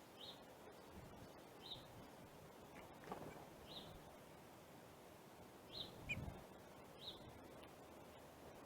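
Faint outdoor ambience with a small bird giving short, high chirps about every one to two seconds, five in all, and a soft low thump about six seconds in.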